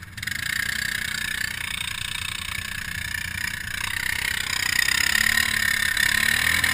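ATV stuck in a deep mud hole with a motor running hard under load: a steady mechanical noise that starts suddenly and grows louder about two-thirds of the way through.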